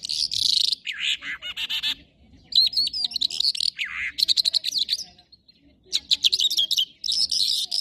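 A caged songbird singing a run of short, varied phrases, each about a second long: sweeping whistles, quick trills and rapid chirps, with a short pause about five seconds in.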